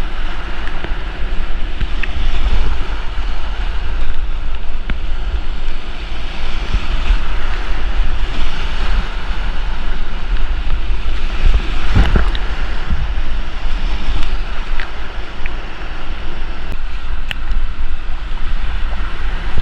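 Whitewater rushing around a kayak, with heavy wind buffeting on the microphone of a point-of-view camera. A few sharp knocks stand out, the loudest about twelve seconds in.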